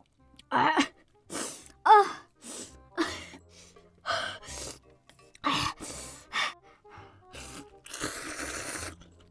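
A woman's pained gasps, short cries and hissing breaths as she reacts to the burn of extremely spicy noodles, ending with a long slurp of noodles. Faint background music underneath.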